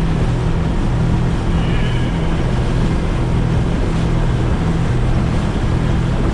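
Twin Yamaha 150 outboard motors running steadily with the boat under way, over a constant rush of wind and water.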